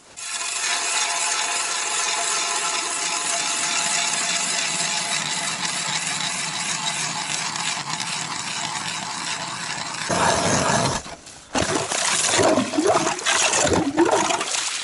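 Hand ice auger cutting into lake ice: a steady scraping grind with a faint ringing tone as the spiral blades shave the ice. About ten seconds in it turns louder and uneven, with short squeals, as the auger breaks through to water and churns in the slushy hole.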